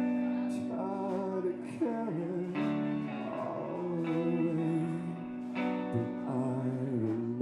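A male singer singing with a strummed acoustic guitar, played live.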